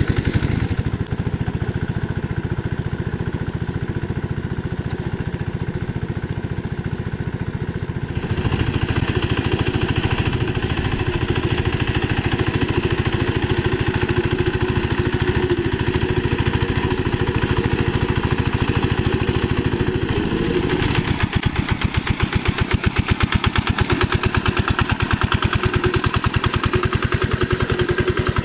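Kubota single-cylinder diesel engine of a two-wheel hand tractor running steadily under load with a rapid, even chug as it drags a rake through paddy mud. The sound grows brighter about eight seconds in and shifts again about twenty-one seconds in.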